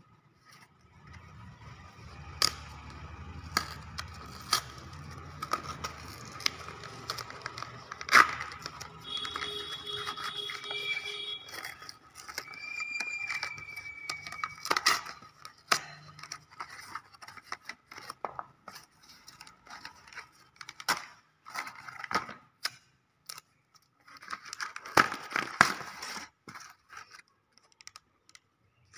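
A cardboard shipping mailer being torn open by hand: irregular ripping, crackling and scraping of card and packing tape with sharp clicks. Two brief thin squeals come near the middle.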